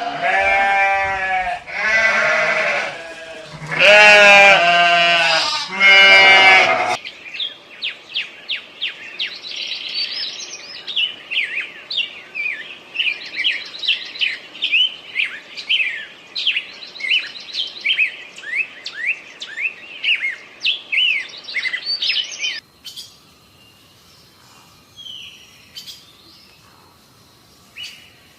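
Animal calls: loud, wavering, bleat-like screams for about the first seven seconds, then a long run of rapid high chirps, then a few faint high calls near the end.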